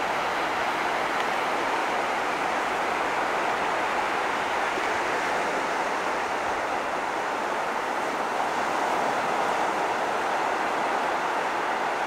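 Sea surf breaking and washing onto the shore, heard as a steady, even rush with no separate crashes standing out.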